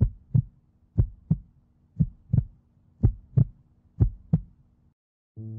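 Heartbeat sound effect: five double thumps, lub-dub, about one a second, which stop near the end as a low music tone comes in.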